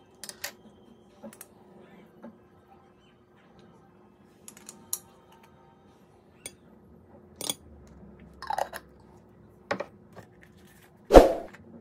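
Spoon clinking and tapping against a glass jar and a ceramic dish while shrimp paste is spooned into the dish: scattered light clicks, with a louder knock near the end.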